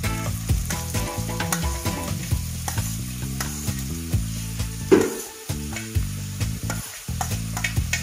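Chopped onions sizzling as they drop into hot oil in a pan, with a spatula repeatedly scraping and tapping them off a plastic plate into the pan.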